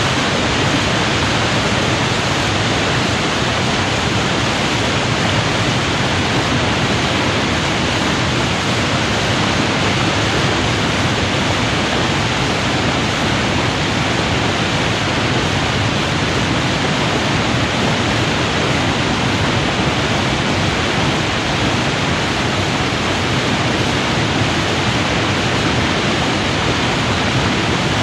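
River water pouring over a weir in full flood: a dense, steady rushing roar with no breaks.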